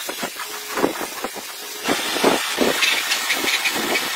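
Gravity-feed air spray gun hissing as it sprays paint onto a steel tractor fender; the hiss starts about two seconds in. Irregular short knocks run throughout.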